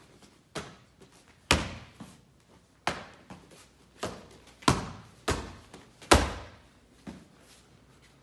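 Muay Thai-style combination of kicks, a knee and elbows landing on padded mitts and shin guards: a series of about eight sharp smacks over seven seconds, each with a short room echo. The hardest come about a second and a half in, near five seconds and about six seconds in.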